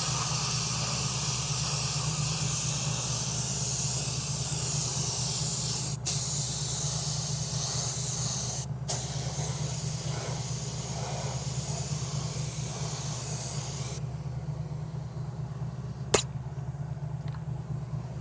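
Clear coat being sprayed onto an alloy wheel: a steady hiss of spray, broken twice briefly as the spray stops and restarts, that ends about 14 seconds in. A sharp click near the end, over a steady low hum.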